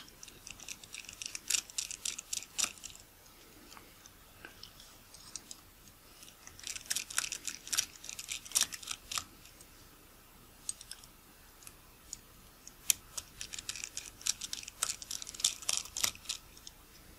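Light metallic clicking and ticking from tiny screws and metal parts being worked loose by hand and with a small screwdriver at the rear mount of a Nikkor 50mm f/1.4 AI-s lens. It comes in three spells of quick clicks with quieter gaps between.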